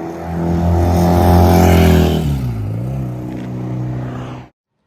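BMW R100RT's 1000cc boxer twin engine running loudly; its note dips and comes back up about two and a half seconds in, and the sound cuts off suddenly near the end.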